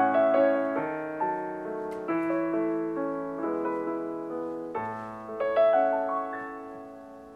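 Solo piano music: chords and melody notes struck about every half second, the last chord near the end left to ring and die away.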